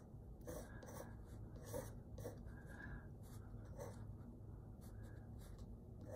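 Graphite pencil (2B) sketching on paper: faint, short scratchy strokes at an uneven pace as lines are drawn.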